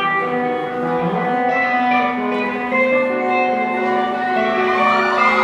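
Rock band playing live, with guitar holding ringing sustained notes. Crowd cheering starts to swell near the end.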